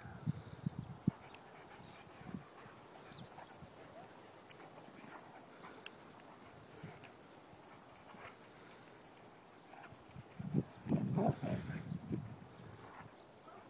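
Dogs play-wrestling on grass: soft, scattered low noises from their mouths and scuffling, with a louder cluster lasting a couple of seconds near the end.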